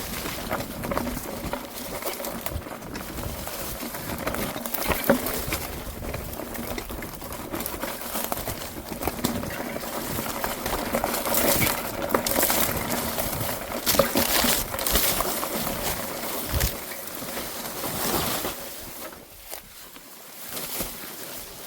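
Irregular footsteps and rustling as someone pushes through the brush of an overgrown trail, with leaves and twigs crackling and brushing against them.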